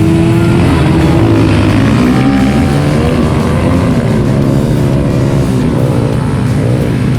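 Vintage trail motorcycle engines revving hard, their pitch rising and falling continuously.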